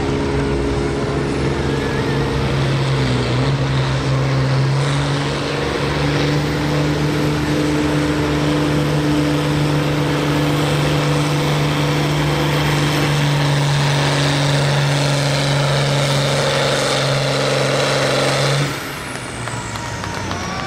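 John Deere pulling tractor's engine running at full throttle while hauling a weight-transfer sled down the track, holding a steady pitch with a high whine above it. Near the end the throttle is cut and the engine drops off, the whine winding down.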